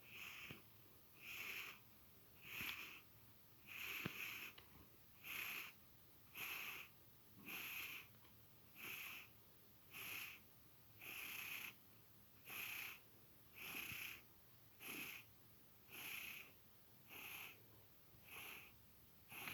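Faint, wheezy snoring: an even run of hissy breath sounds, one about every 1.2 seconds, with little low rumble.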